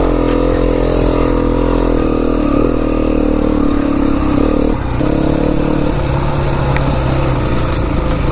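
Enduro dirt bike engine pulling under throttle: the revs hold steady, dip briefly about five seconds in, then carry on at a lower pitch.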